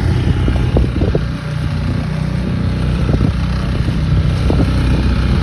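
Dinghy outboard motor running steadily under way.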